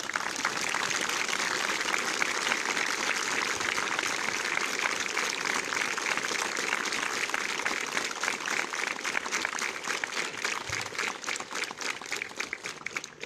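A large group applauding: dense, steady clapping that thins out near the end.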